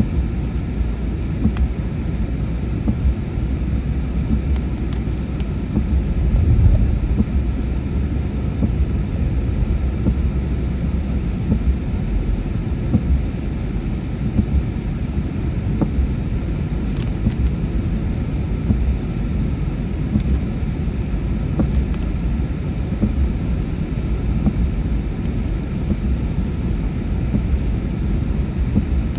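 Inside a car driving on a rain-wet road: a steady low rumble of tyres and engine, swelling briefly about six seconds in, with a few faint ticks.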